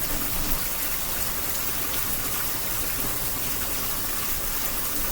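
Heavy rain pouring down steadily, a dense, even hiss of drops hitting the ground.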